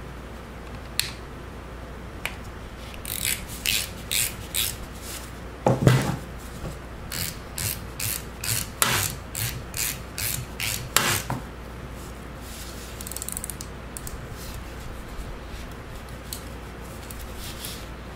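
An Allen wrench working a screw on a Gresen hydraulic control valve: a run of short metal clicks and scrapes, about two a second, with a couple of heavier knocks as the valve body is handled.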